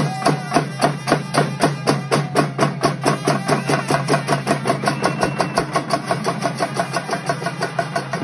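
A Sri Lankan kawadi street band playing: bass drums and hand-held frame drums are struck in a fast, even beat of about four or five strokes a second. Trumpets and a trombone hold notes over the drumming.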